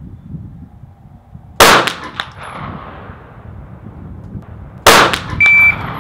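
Two pistol shots about three seconds apart, each a sharp crack followed by a short echo. A short high-pitched electronic beep sounds about half a second after the second shot.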